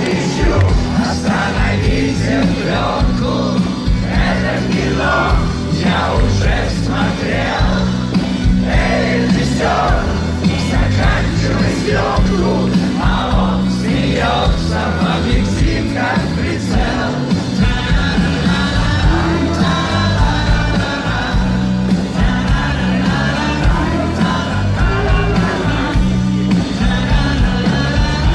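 Live rock band playing a song with a singer, heard from within the audience. The singing voice gives way to steadier held notes about two-thirds of the way through.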